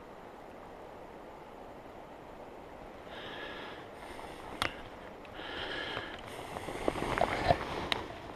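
A faint, steady background hiss, then handling noise close to the microphone from about three seconds in: rustling and a few sharp knocks and clicks as the angler shifts position on the rocks with fly and line in hand. The loudest knocks come near the end.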